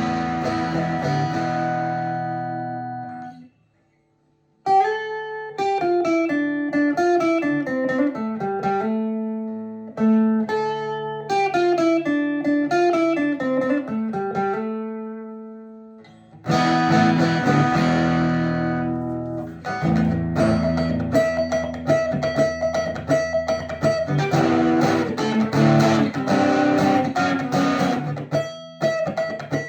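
Steel-string acoustic guitar fitted with an electric-guitar pickup, played amplified. A strummed chord rings out, then after a brief pause comes a picked single-note melody in falling arpeggios. About halfway through, rhythmic strummed chords take over.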